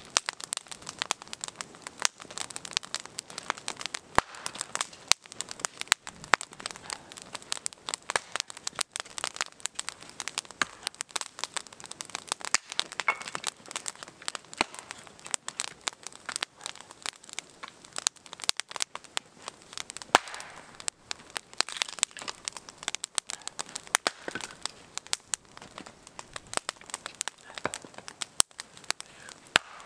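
Wood campfire crackling, with a dense, irregular stream of snaps and pops, some louder than others.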